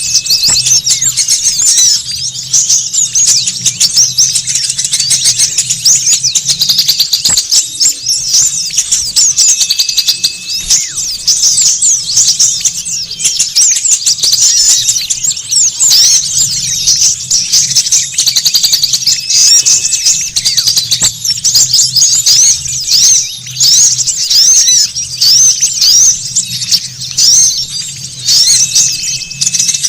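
Bird-lure recording of a noisy crowd of small songbirds chirping and twittering rapidly and without pause, all high-pitched, over a low hum. A short steady whistled note recurs about every ten seconds, as the track loops.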